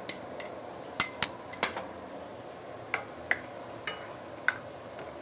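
Wooden spatula knocking and scraping against a non-stick wok as pork in sauce is stirred, a string of irregular clicks with the loudest about a second in. The stirring works in cornstarch solution to thicken the sauce.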